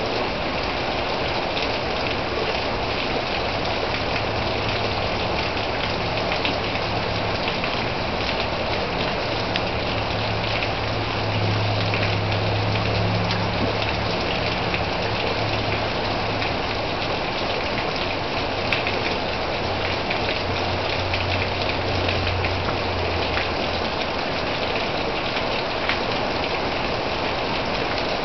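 Heavy rain pouring steadily onto grass, trees and pavement. A low hum rises and fades under it in the middle.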